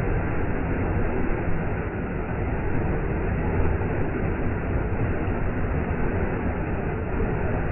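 Waterfall pouring: a steady, deep rush of water that does not change.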